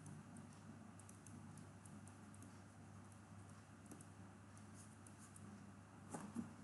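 Near silence: faint steady room hum with light, scattered ticks of a stylus writing on a pen tablet, and a brief soft bump a little after six seconds in.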